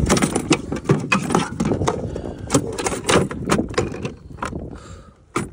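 Handling noise: irregular knocks, clatters and rubbing as a carp is laid and shifted on a measuring board on a boat's plastic deck. The knocks thin out near the end, with one last sharp click.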